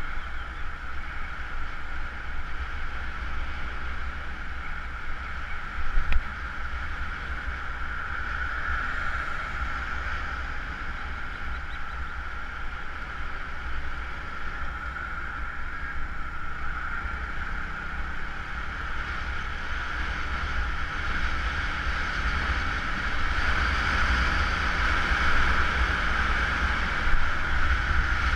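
Rushing wind and road rumble on a moving Honda CBR motorcycle, with its engine running under the wind noise on the microphone, growing a little louder over the last few seconds. A short thump about six seconds in.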